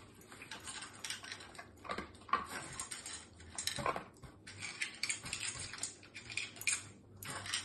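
Metal muffin tin clinking and scraping on a tile floor as a dog noses the toys out of its cups to get at the food underneath, in short irregular knocks and rattles.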